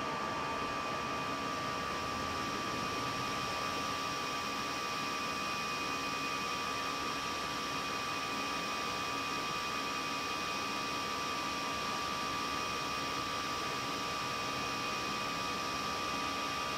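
Steady cockpit noise of an Airbus A319 climbing after takeoff: an even rush of air with a steady thin tone running through it.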